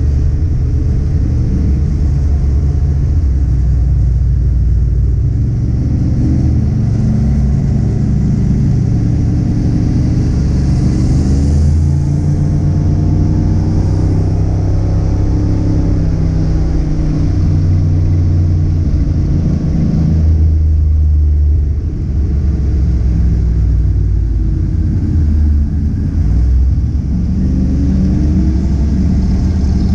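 A car engine driving under load for the whole stretch, its pitch rising and then dropping in steps as it revs and changes gear. The loudness dips briefly about 22 seconds in.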